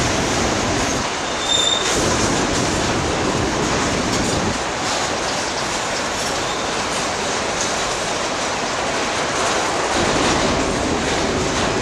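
Freight train boxcars rolling past close by, a steady loud noise of steel wheels running on the rails, with a brief high-pitched squeal about a second and a half in.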